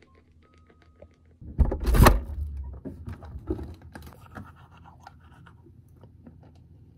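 Things being handled in a kitchen while breakfast is made: a faint electronic beep, then about one and a half seconds in a loud thump and rustle, followed by a run of small clicks, knocks and scrapes that die away.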